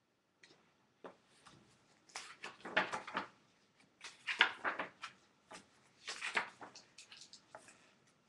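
Handling noises close to the microphone: three bursts of rustling and clicking, about two, four and six seconds in, with a few single ticks between.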